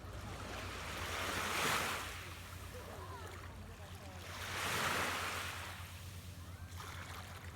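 Ocean surf: two waves break and wash in, each swelling and fading away, about three seconds apart.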